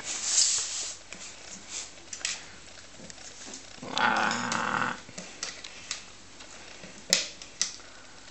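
Small dog with its head inside a plastic tub, scraping and knocking the tub as it paws and licks inside, with a growl from inside the tub about four seconds in. A sharp knock of the tub comes near the end.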